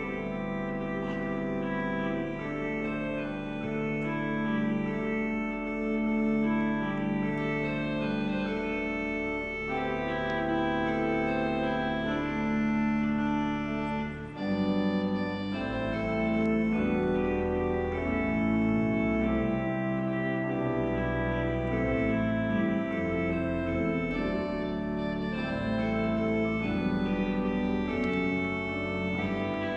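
Large pipe organ playing sustained chords. About 14 seconds in the music breaks off briefly and resumes with deeper bass notes added.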